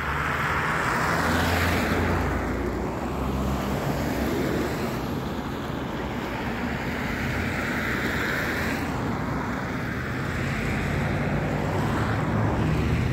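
Road traffic on a snow-covered street: cars passing with a low engine hum, their tyre noise swelling and fading twice.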